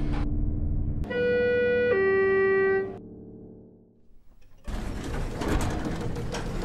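Elevator arrival chime: two held electronic tones, a higher one dropping to a lower one, about a second in. Low background music runs before it, and a dense, noisy sound comes in just under five seconds in, after a near-quiet pause.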